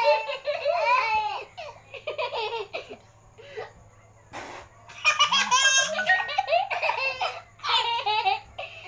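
Baby laughing hard in high-pitched belly laughs and giggles, coming in several bursts with a lull about three to five seconds in.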